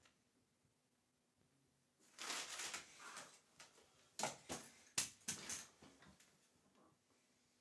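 A person moving about at a desk and sitting down in an office chair. There is rustling about two seconds in, then several sharp knocks and clicks.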